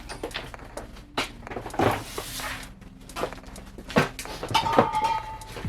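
Objects being handled and moved about: scattered knocks, clatters and scrapes, with a louder clatter about two seconds in and a brief high ringing squeak near the end, over a faint steady low hum.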